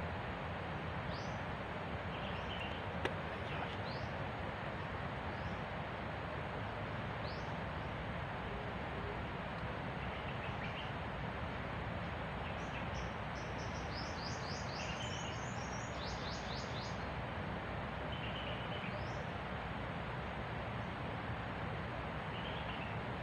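Outdoor forest ambience: a steady hiss under small birds calling with short, high, sweeping chirps scattered through, and a quick run of repeated chirps around the middle. A single sharp click about three seconds in.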